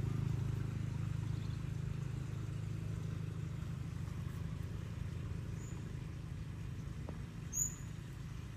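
Low engine rumble that slowly fades over several seconds, like a motor vehicle passing and moving away. A short high chirp comes near the end.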